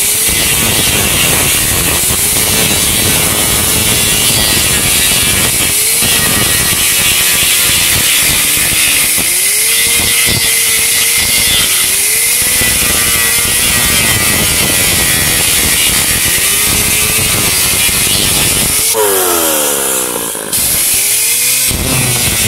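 Pneumatic cut-off tool with a thin abrasive wheel grinding through a steel shift lever, throwing sparks. It gives a steady high hiss over a motor pitch that sags and recovers as the wheel bites. About 19 s in it is let off and winds down, then is run up and winds down again near the end.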